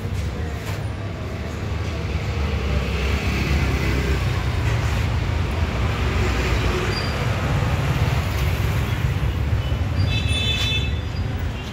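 Road traffic noise: a low rumble of passing vehicles that swells for several seconds, with a brief high-pitched squeal near the end.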